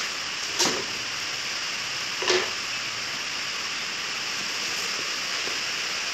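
Two brief knocks about a second and a half apart as white laminated flat-pack cabinet panels are handled and set down on a tile floor, over a steady background hiss.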